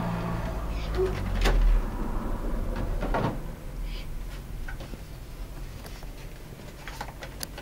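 Rustling and clicking of plastic and cardboard packaging being handled as a computer mouse and its cable are taken out of the box, with a low bump about a second and a half in as the loudest moment.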